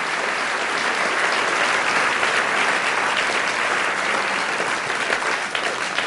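Crowd applauding: dense clapping from many hands, beginning to thin out near the end as single claps stand out.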